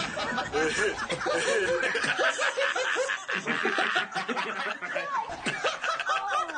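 Four men laughing together, overlapping chuckles and snickers without a break.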